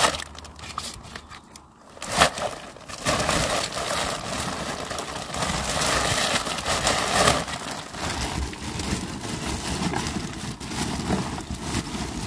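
Rustling, crinkling and knocking of belongings being rummaged through by hand, with a sharp knock about two seconds in.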